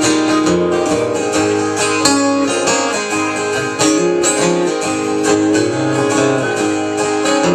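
Live country song in an instrumental break: strummed acoustic guitar with a bass line underneath, no singing.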